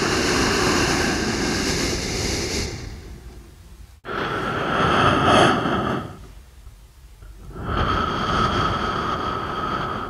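Breathing through the nose: three slow, airy breaths, each about two to three seconds long, with short pauses between them.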